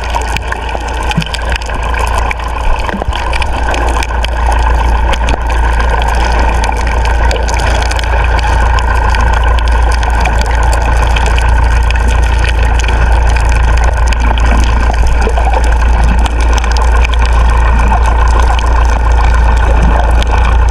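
A fishing boat's engine running steadily under way. It gives a constant deep drone with a steady higher hum, growing slightly louder over the stretch.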